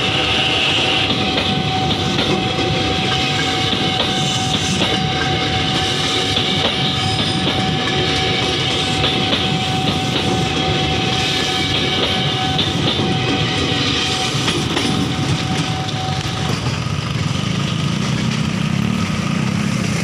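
Electric commuter train passing close by, its wheels rumbling and clattering over the rail joints, with one steady high whine that stops about three-quarters of the way through. A lower, heavier rumble takes over near the end.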